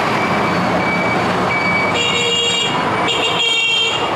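Road traffic running past, with two vehicle horn toots, one about two seconds in and a longer one about three seconds in.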